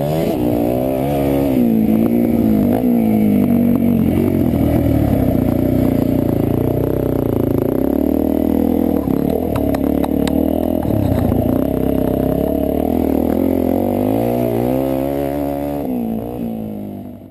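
Suzuki DR-Z400E's single-cylinder four-stroke engine revving up and down as the dirt bike is ridden hard off-road, with scattered clicks about halfway through. The sound fades out at the very end.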